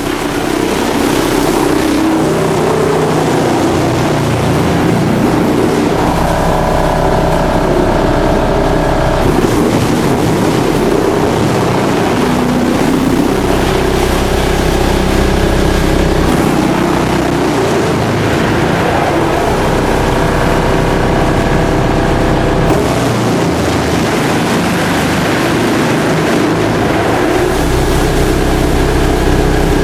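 Drum wood chipper running loudly and steadily, with a higher whining tone that comes in for a few seconds twice.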